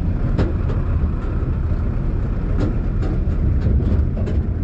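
Tractor engine running while it pulls a loaded trailer over a rough gravel track, with a steady low rumble and frequent knocks and rattles from the trailer bed.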